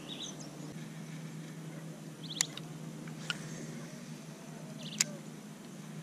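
Riverside ambience with a steady low hum and a few short, high, squeaky bird chirps. Two sharp clicks stand out, about two and a half and five seconds in.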